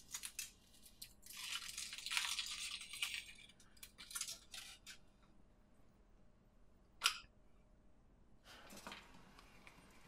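Faint crinkling and tearing of a Kinder Surprise egg's foil wrapper as it is peeled off, then the chocolate shell is broken open with a single sharp snap about seven seconds in, followed by more rustling.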